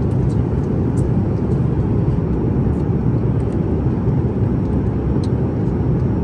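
Steady low rumble of an airliner cabin in flight, engine and airflow noise, with a few faint clicks over it.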